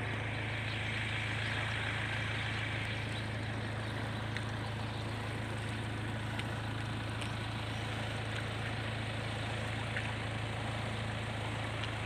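Small, gentle waves lapping onto a sandy reservoir shore, over a steady low rumble.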